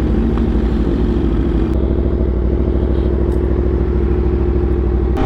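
Aprilia RSV4's V4 engine running under way at a steady, unchanging pitch as the motorcycle is ridden.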